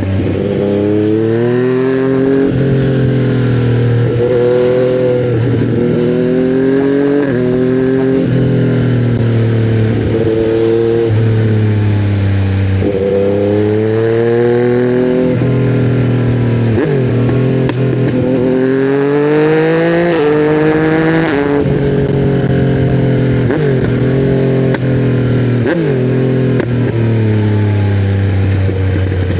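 2020 Yamaha MT-09's 847 cc inline-three engine through custom headers and a titanium Akrapovic silencer, accelerating hard: the revs climb over a second or two, drop sharply at each gear change, and climb again, over and over.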